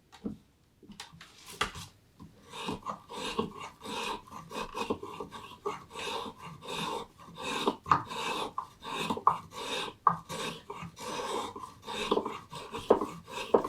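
A hand edge tool shaving green black walnut, in a quick run of short scraping cuts that start about a second in.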